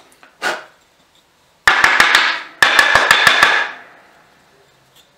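Two quick runs of sharp knocks, about five and then about six, with a metallic ring that fades after the last one. The sound is a freshly drilled wooden piece being rapped against the drill press's metal table, knocking the drilling chips out of the new hole.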